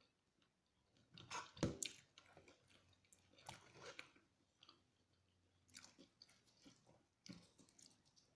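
Close-miked chewing and biting of fried chicken, in short wet, clicky bouts, loudest about a second in.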